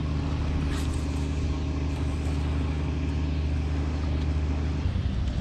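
Steady low engine drone at an even pitch, cutting off suddenly near the end.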